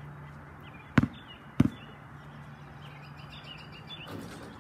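A basketball bouncing twice on a concrete driveway while being dribbled, about a second in and again just over half a second later, over a steady low hum.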